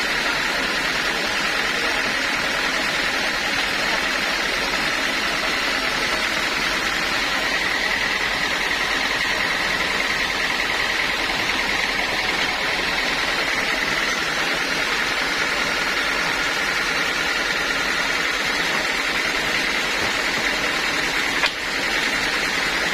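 Sawmill saw and machinery running steadily, a constant high whine over a wash of machine noise, with one sharp click near the end.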